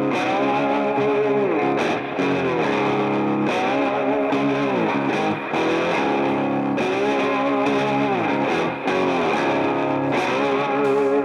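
Background music led by a distorted electric guitar.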